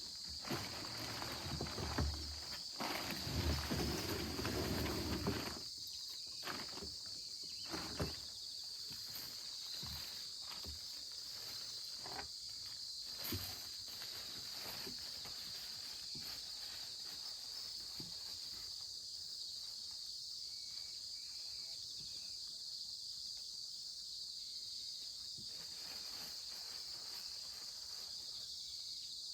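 Steady high-pitched insect chorus chirring continuously, with louder scuffing and rustling over the first six seconds or so and a few scattered clicks after.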